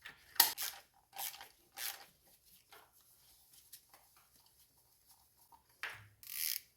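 Light clicks and scrapes of hand tools and engine parts while spark plugs are taken out of an engine, several in the first two seconds, then a brief rustling hiss near the end.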